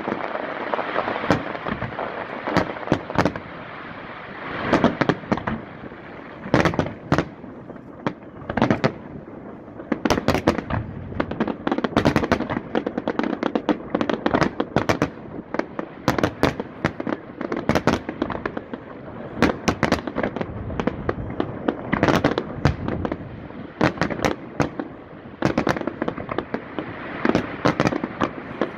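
Festival fireworks display: a rapid, irregular series of sharp bangs from shells bursting, over continuous crackling.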